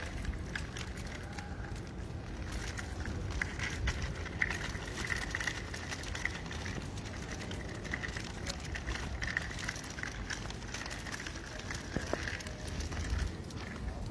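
Small plastic wheels of a child's stroller rolling over rough concrete and asphalt: a continuous gritty crackling and rattling, with scattered sharper clicks.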